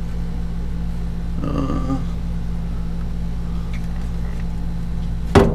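A steady low mechanical hum made of several even tones, as from a motor or engine running, with a sharp knock near the end.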